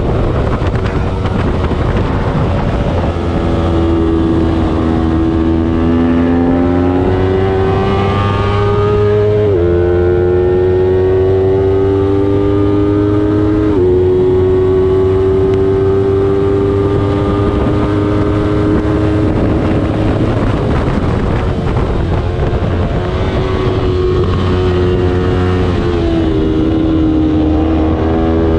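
Small-displacement racing motorcycle engine at high revs, climbing in pitch with two sudden drops at upshifts near the middle. It holds steady, then falls off as the bike slows and climbs again near the end, over steady wind and road noise.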